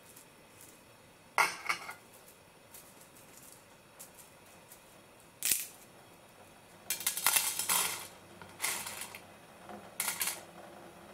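Dry squid ink spaghetti being snapped and dropped onto a ceramic plate: several sharp cracks and short rattling clatters of the stiff sticks against the plate, the longest and busiest about seven seconds in.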